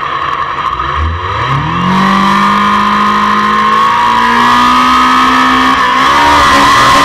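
Racing motorcycle engine revved up quickly from idle and held at high revs, its pitch creeping slowly higher, then dipping briefly near the end, over a steady high whine.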